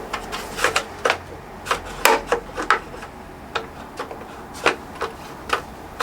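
Irregular short clicks and taps of hard parts being handled and knocked together while a hook is worked into place on a motorcycle rear rack.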